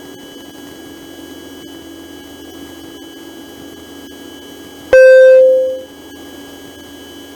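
Cessna 150 cockpit, its engine a steady subdued drone during the climb-out, broken about five seconds in by a single loud beep that lasts just under a second and fades away.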